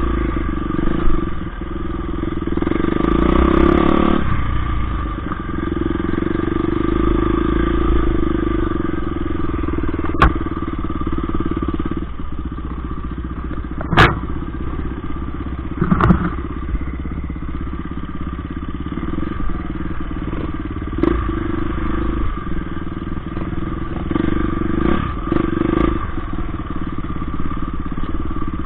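Off-road dirt bike engine running steadily at low speed on a rough trail, heard close up from the bike itself, with a few sharp knocks around the middle.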